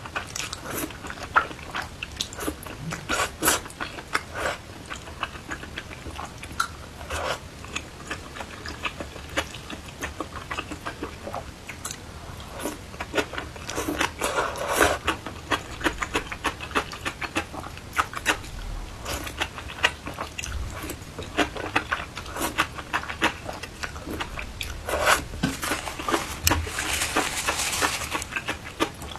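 Close-up eating sounds: chewing and crunching, with many small, irregular sharp clicks and smacks, growing denser near the end.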